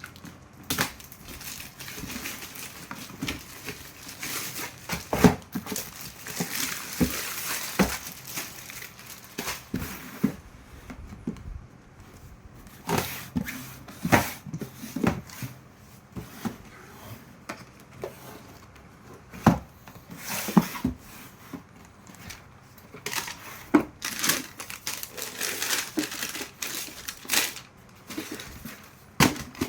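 Shoe packaging being unboxed: wrapping crinkling and rustling, broken by irregular knocks as the box and shoes are handled.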